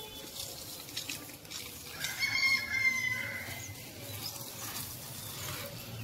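Water splashing and pattering onto garden plants as they are watered, with a brief high chirp about two seconds in.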